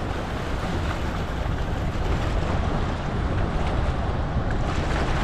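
Steady rush of high floodwater churning below a spillway, with wind buffeting the microphone.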